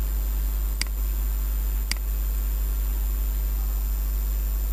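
Steady low electrical hum and hiss of the recording setup, with two sharp mouse clicks about a second apart near the start.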